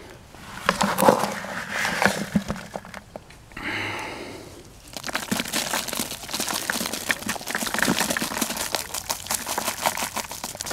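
Dry manure and dirt being crumbled by hand and dropped into a plastic bucket onto dry leaves and shredded cardboard: irregular crackling and rustling, with a brief smoother rush about four seconds in.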